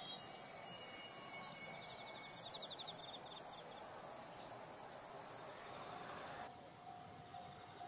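Insects chirping and trilling in pulsed bursts over a steady high drone, with the faint even noise of a train running along the line across the fields. The train noise cuts off abruptly about six and a half seconds in.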